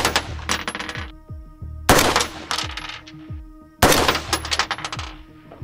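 AR-15 rifle with a 16-inch barrel firing 5.56 rounds: three shots about two seconds apart, each echoing as it dies away.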